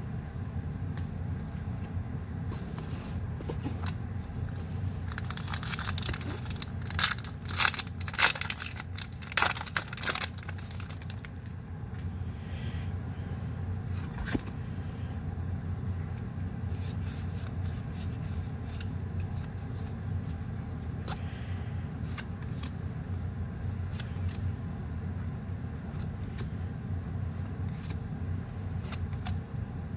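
Pokémon trading cards being handled, each card slid off the front of a stack and tucked behind, paper card stock scraping and flicking. A busy run of scrapes comes a few seconds in, loudest about seven to ten seconds in, then lighter occasional ticks, all over a steady low background hum.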